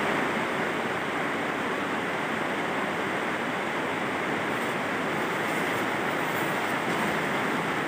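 Rain falling on the plastic film roof of a greenhouse, a steady even hiss.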